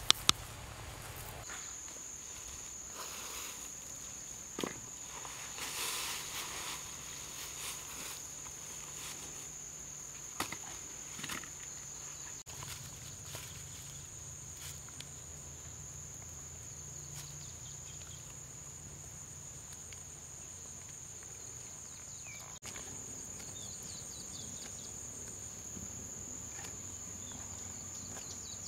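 An insect buzzing steadily at one high pitch, starting about a second and a half in. It sits over scattered soft rustles and clicks, mostly in the first half.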